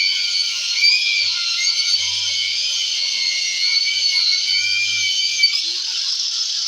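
Angle grinder whining as it cuts into a speaker box, its pitch dipping and recovering as the disc takes load. About five and a half seconds in, the whine gives way to a rougher hiss.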